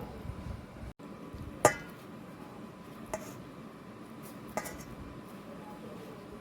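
Kitchen dishes and utensils clinking: one sharp, ringing clink about a second and a half in, then two lighter clinks.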